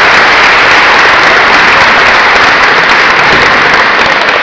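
Audience applause, a loud, dense clapping from a large crowd that begins to thin out near the end.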